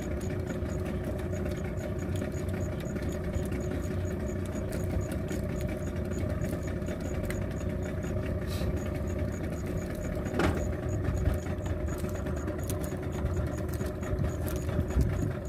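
Boat engine running steadily, a continuous low drone with a faint, quick, regular high ticking.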